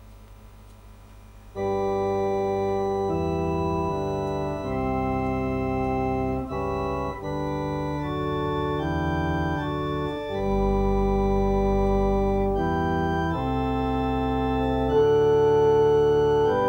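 Electronic organ, switched to equal temperament, playing a slow hymn phrase in sustained chords that change about once a second, starting about a second and a half in. This is the tempered half of a comparison with the organ's just-intonation tuning.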